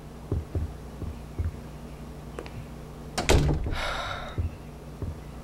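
Footsteps on a wooden floor, a soft low thump every half second or so, with one loud thud about three seconds in followed by a short rustle.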